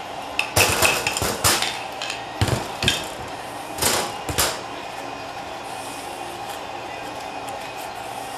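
Metal clinks and knocks as a TH350 transmission valve body and its valves are handled during reassembly: the valve, sleeve and spring are picked up and the valve body casting is lifted and turned to work them into the bore. There are three short clusters of clicks in the first half, then only a faint steady hum.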